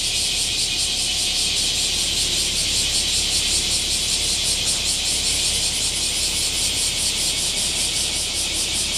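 Chorus of summer cicadas in the street trees: a loud, dense high buzz that pulses rapidly and evenly throughout. Faint low rumble of road traffic underneath.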